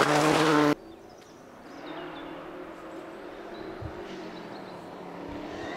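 A rally car's engine running hard as it passes close, cut off abruptly under a second in. A distant Subaru Impreza rally car's engine follows, faint and steady and slowly growing louder as it approaches on the gravel stage.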